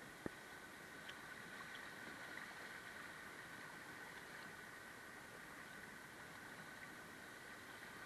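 Faint steady rush of river water flowing over a shallow rock riffle, with a single sharp click a moment in.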